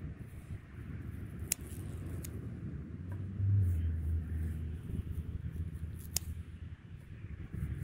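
Scissors snipping young goatsbeard stems: three sharp clicks, the loudest near the end, over a steady low rumble.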